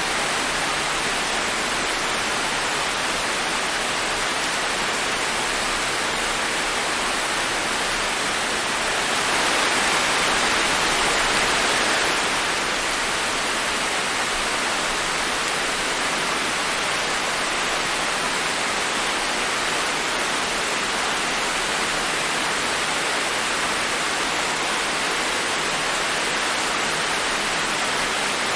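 Steady rain falling as a dense, even hiss, swelling slightly for a few seconds about ten seconds in.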